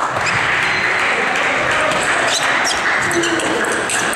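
A few sharp clicks of a table tennis ball striking the table and paddles, over the steady noise of a sports hall.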